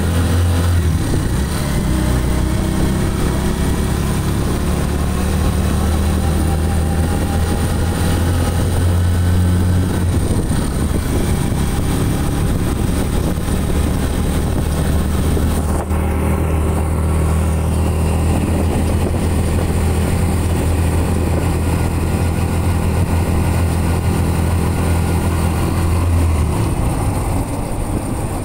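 Engine of a small open-sided passenger vehicle, heard from on board while it drives along a road: a steady low drone with road noise. The low engine note drops away shortly before the end.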